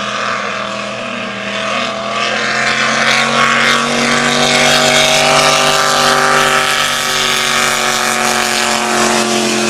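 Supercharged drag boat engine running hard on a pass, its pitch climbing slightly over the first few seconds and then holding steady, with the hiss of spray from the hull and prop underneath. It grows louder a few seconds in.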